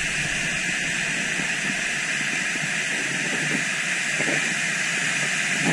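Steady rush of river water pouring over a low dam spillway and through shallow rapids: an even hiss with little low rumble.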